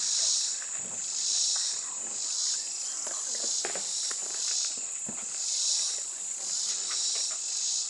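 Insect chorus: a high, shrill buzzing that swells and fades about once a second.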